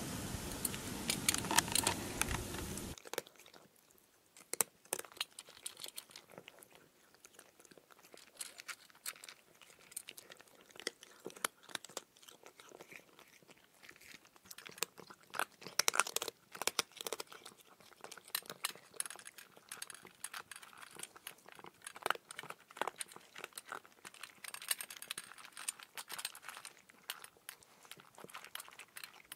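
A red squirrel cracking and chewing seeds: irregular sharp crunches and clicks, coming in quick clusters. It opens with about three seconds of louder steady outdoor noise that cuts off suddenly.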